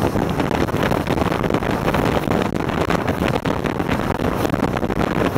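Wind buffeting the microphone of a rigid inflatable boat under way, over the steady running of its engine and the rush of water past the hull, with many short, irregular gusts.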